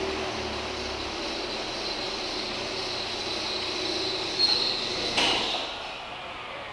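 Red concentrated radiator coolant pouring from a bottle into a plastic funnel on a car's coolant expansion tank, a steady trickle with a faint high tone. A sharp knock comes about five seconds in, and the sound then dies away.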